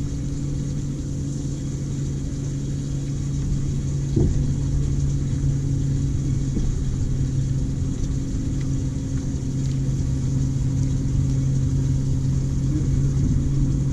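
Minn Kota Terrova electric trolling motor running at a steady speed: an even low hum, with a soft thump about four seconds in.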